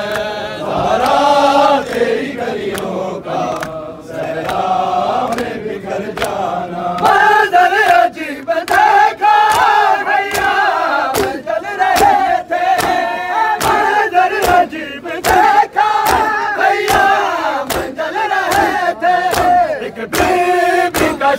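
A crowd of men chanting a noha together. From about seven seconds in, regular slaps of hands on bare chests (matam) join in, about two a second, in time with the chant.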